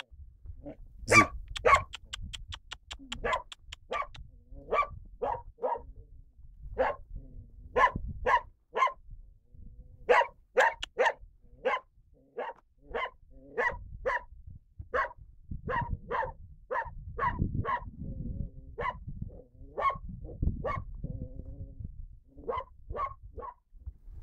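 A dog barking over and over, short sharp barks about one or two a second, with a quick run of barks about a second in. A low rumble sits underneath at times.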